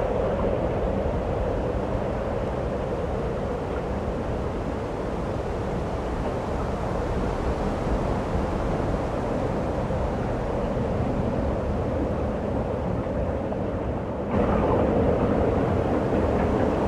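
Steady rushing wind of a snowstorm, with no distinct events, jumping suddenly louder about fourteen seconds in.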